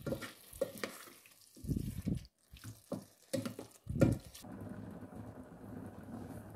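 A metal spoon scraping and knocking against a steel pot as pieces of mutton curry are stirred, in short choppy bits with abrupt breaks. About four and a half seconds in, this gives way to a steady bubbling of the curry simmering in the covered pot.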